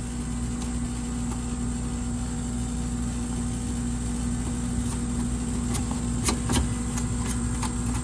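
2012 Carrier AC condensing unit running, with the compressor humming steadily under the condenser fan. The compressor had not been starting, and a capacitor reading about 0.2 microfarads on the Herm terminal was found failed. A few light clicks about six seconds in.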